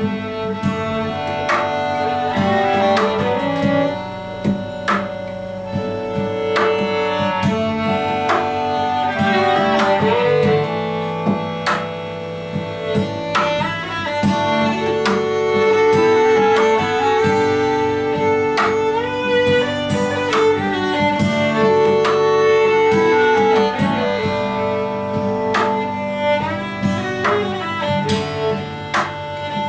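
Live acoustic trio of violin, clarinet and acoustic guitar playing an instrumental folk-classical piece: long held violin and clarinet melody notes over steadily strummed and plucked guitar chords.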